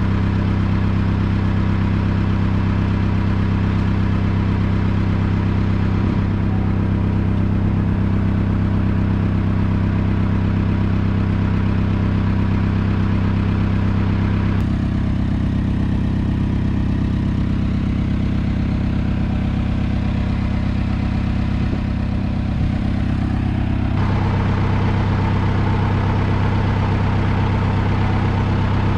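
An engine running steadily at idle, a constant low hum, with a sudden change in tone about halfway through and again near the end.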